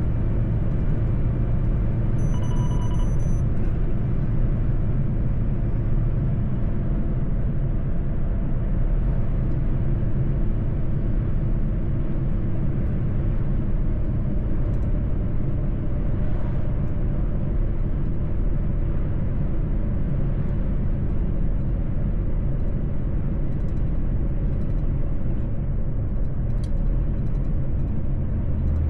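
Mercedes-Benz truck driving at a steady pace: a continuous low engine and road drone. A short electronic beep sounds about two seconds in.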